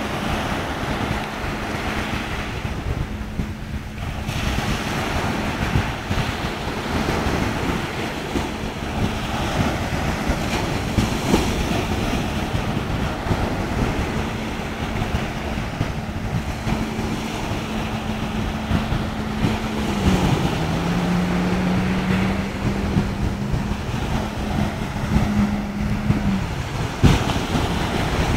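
Surf breaking and wind buffeting the microphone, over the steady drone of a jet ski engine out on the water. About two-thirds of the way through, the engine's pitch drops, and it stops a couple of seconds before the end.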